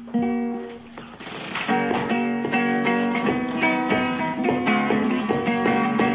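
Acoustic guitar being played: a chord rings at the start, then from about two seconds in a fast, continuous run of plucked notes and strums.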